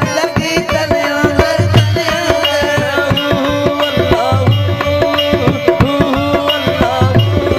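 Instrumental interlude of South Asian folk music: a harmonium plays a busy run of short melodic notes over a steady, rhythmic hand-drum beat.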